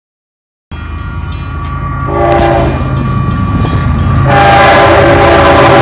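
Diesel locomotive approaching at speed at the head of a double-stack container train, its air horn sounding over the engine's low rumble. The sound grows louder, with the horn strongest from about four seconds in.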